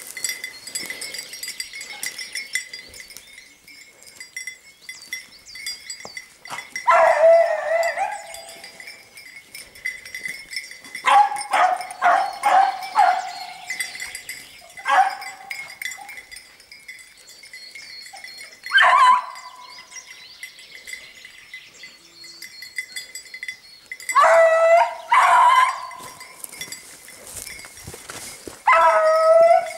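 Beagles baying on a hare's trail: a long drawn-out bay, then runs of short yelping barks, coming in bouts every few seconds with quieter stretches between.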